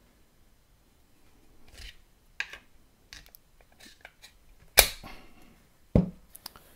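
Olight R50 Pro Seeker flashlight being pressed and snapped into its R-Dock charging holder: a few small clicks, then a sharp loud snap about five seconds in and a duller knock about a second later.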